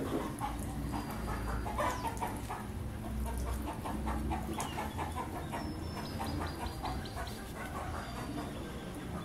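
Chickens clucking in quick runs of short notes, with a few high bird chirps.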